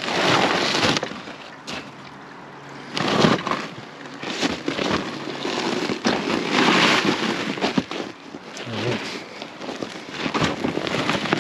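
Loaded plastic ice-fishing sled being dragged and shoved over snow, scraping and sliding in irregular bursts, with boots crunching in the snow.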